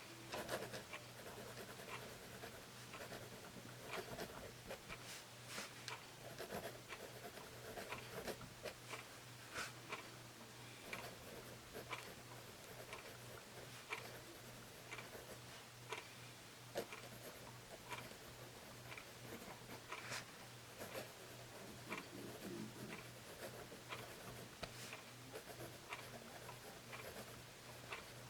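A Pentel Graph Gear 500 mechanical pencil with 0.7 mm lead writing on paper: faint scratching pencil strokes with small irregular ticks.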